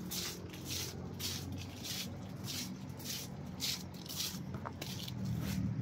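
Footsteps scuffing on a tiled floor, about two steps a second, stopping near the end.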